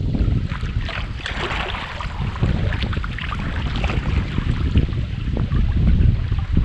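Wind buffeting the microphone in a heavy low rumble, with choppy water slapping and splashing against a plastic kayak's hull in short irregular splashes.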